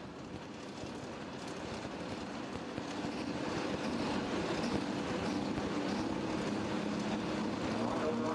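Turbocharged diesel engine of a super stock pulling tractor running hard under load as it pulls the sled, growing steadily louder over the first few seconds and then holding.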